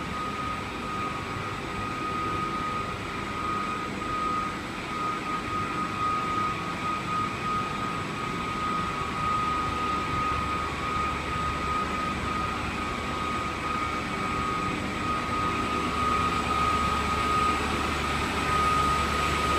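Steady running noise of construction machinery, a continuous drone with a constant high-pitched whine over it, getting slightly louder near the end.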